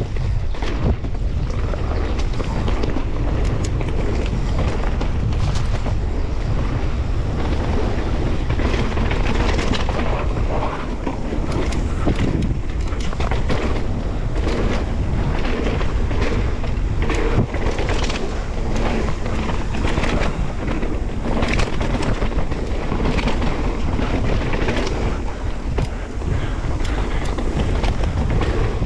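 Mountain bike riding down a dirt trail: wind buffeting the microphone over a steady rumble of the tyres on the ground, with frequent clicks and rattles from the bike over bumps.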